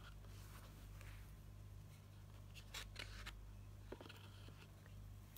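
Faint handling noise: a few light clicks and rustles as plastic phone accessories are lifted out of a cardboard box, over a steady low hum.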